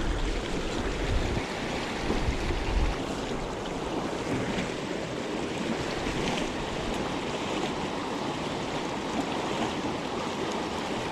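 Small creek running high with spring runoff: a steady rush of water. A low rumble sits under it for the first three seconds or so.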